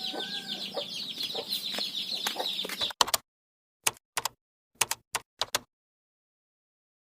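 Chickens clucking over a fast, high pulsing trill and a low hum. The sound cuts off abruptly about three seconds in, and a few short, sharp clicks follow before silence.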